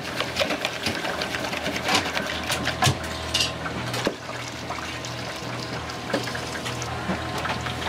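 Brown broth poured from a plastic jug into an aluminium stockpot, splashing and bubbling into the liquid already there. Scattered sharp clicks and clatter of utensils against the pot sound over a steady low hum.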